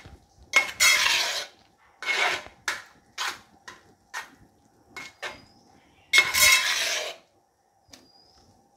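Metal spoon scraping and stirring vermicelli and milk in a brass uruli, in a run of short rasping strokes; the longest and loudest comes about six seconds in, and the strokes stop about a second later.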